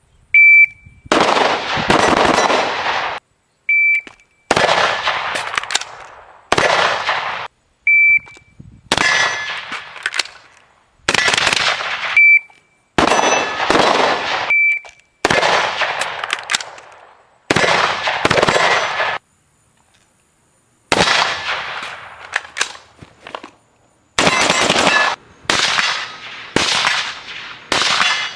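Custom AR-15 rifle in 5.45x39 firing, shot after shot, each report trailing off in a long echoing tail; the shots come quicker near the end. A short high beep sounds just before several of the early shots.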